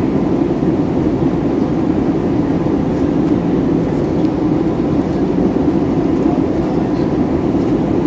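Steady cabin noise of an airliner in flight: the engines and airflow make an even, unbroken drone, heard from inside the passenger cabin.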